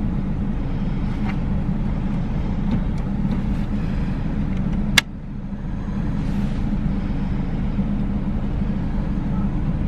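Steady low hum of a car's idling engine heard inside the cabin, with one sharp click about halfway through as the Cybex car seat base is fitted to the back seat.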